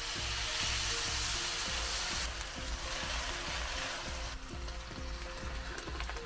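Hot milk poured into a hot wok of fried rice and whole spices, sizzling and hissing as it hits the pan and is stirred in. The hiss is strongest for about the first four seconds, then eases, with background music underneath.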